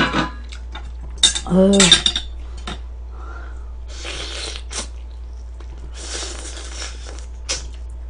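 Close-miked eating: a woman bites and chews a piece of food held in her hand, with sharp clinks of dishes and cutlery and a short hum of her voice early on.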